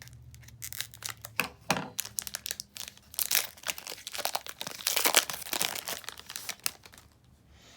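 A Prizm trading-card pack wrapper being torn open and crinkled by hand: a dense run of crackles, loudest in the middle, that dies down about seven seconds in.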